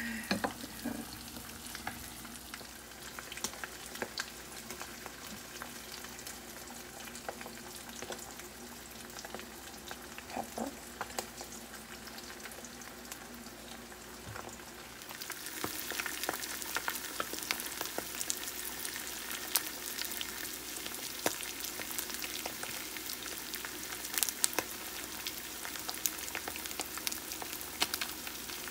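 Two eggs frying in hot fat in a nonstick skillet: a steady sizzle with frequent small pops and crackles, getting louder about halfway through.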